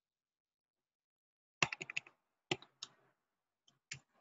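Faint computer keyboard and mouse clicks: a quick run of about five clicks about one and a half seconds in, then a few single clicks, the last near the end.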